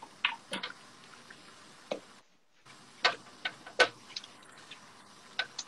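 A spoon tapping and knocking against a frying pan as pasta with zucchini and shrimp is stirred and tossed, heard as scattered, irregular sharp clicks.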